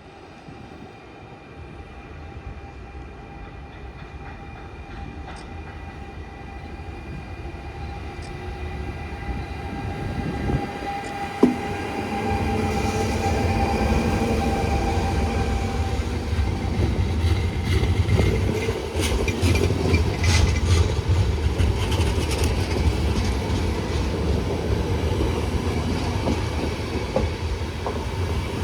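Electric train approaching and getting steadily louder for about twelve seconds, then running close by with a steady low rumble and the wheels clicking over rail joints.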